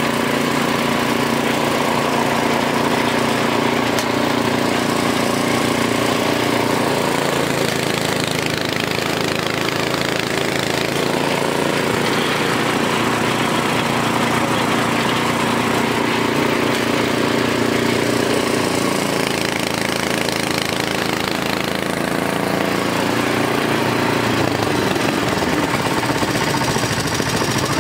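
Engine of a sugarcane juice crusher running steadily, its pitch shifting slightly from time to time.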